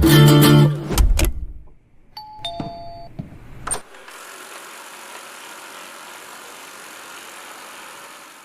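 Background music cuts off about a second in, followed by a short two-note electronic chime, the second note lower. A click comes just before a steady hiss that runs to the end.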